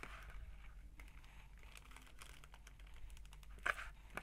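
Faint clicking and scraping of a metal spoon against a plastic bowl as soft bait dough is scooped into a plastic bag, with one slightly louder tap near the end.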